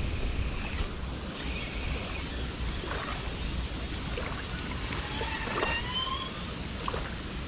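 Strong wind buffeting the microphone, with small waves lapping at the riverbank. A faint short rising whistle about five and a half seconds in.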